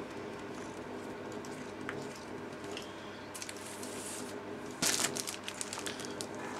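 A magazine in a clear plastic sleeve being picked up and handled: a sharp rustle of plastic and paper about five seconds in, then lighter crinkles, over a low steady hum.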